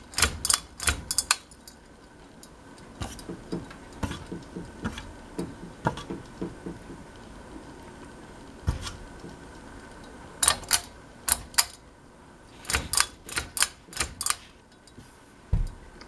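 Pull-chain switches of a Westinghouse ceiling fan being pulled again and again: sharp clicks in several quick clusters, with the metal bead chains rattling, and a low thump near the end. The fan is not wired up, so no motor runs.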